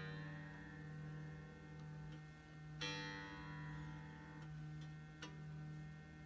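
Harley Benton B550 fretless five-string bass played softly: a string is plucked about three seconds in and its note rings and fades, over a steady low hum. A faint click comes near the end.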